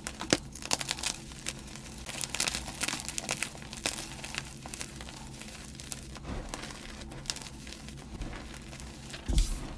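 Blocks of gym chalk being crushed and crumbled by hand, giving a dense, irregular crackling and crunching, with a heavier crunch near the end.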